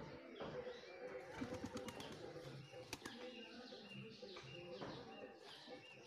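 Pigeon's wings flapping, a quick run of wing beats about a second and a half in, with small birds chirping.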